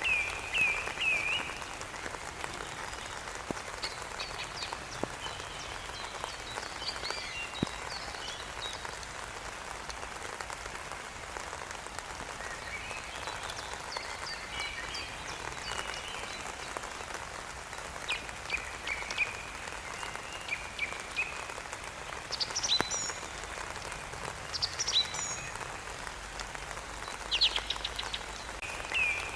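Steady rain falling, with birds calling and singing over it in short chirps and whistles that come and go.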